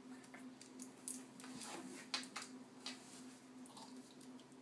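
Plastic Lego bricks being handled and pressed together: a scatter of faint, irregular small clicks and rattles, over a steady low hum.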